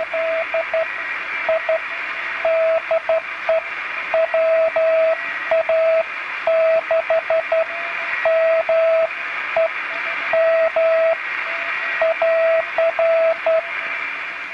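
Morse code from an amateur radio receiver: a single steady tone keyed on and off in dots and dashes, over constant receiver hiss.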